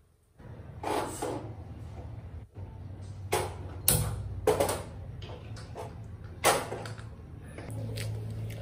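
Handling noises: a series of knocks and clatters, about six, spread irregularly over a low steady hum.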